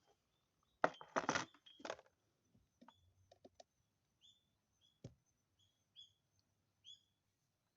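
A quick cluster of metal clinks and clatter about a second in, like tools being handled, then a small bird chirping in short high notes, repeated several times.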